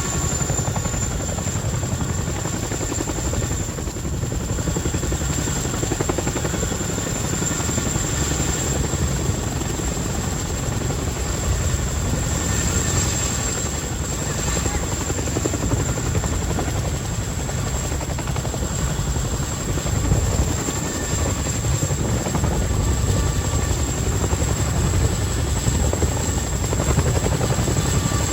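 Boeing CH-47D Chinook tandem-rotor helicopter running close by, its twin turbines giving a steady rumbling rotor beat with a thin high whine above it and no pause.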